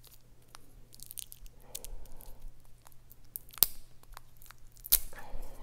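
A leather bag strap being handled and looped in the hands: soft rustling with scattered small ticks and two sharp clicks, about three and a half and five seconds in.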